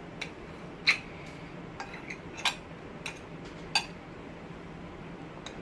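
Cutlery clinking on plates during a meal: about seven sharp clinks in the first four seconds, then only a low steady hum.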